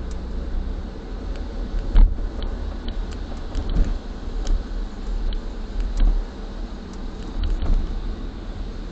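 A car's road noise heard from inside the cabin while driving on a wet road: a steady low rumble with tyre hiss, scattered light clicks, and a louder bump about two seconds in.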